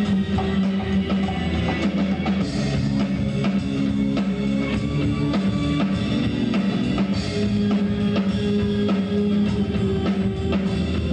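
Live band playing an instrumental passage: drum kit keeping a steady beat under guitars, with held low notes.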